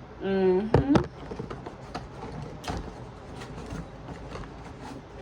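A brief vocal sound in the first second, then a run of light, irregular clicks and taps: hands handling packaging and small accessories from a camera box.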